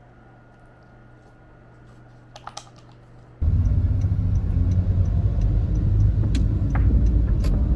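Faint room tone with a few soft clicks, then an abrupt switch about three and a half seconds in to a loud, steady low rumble with scattered clicks and knocks.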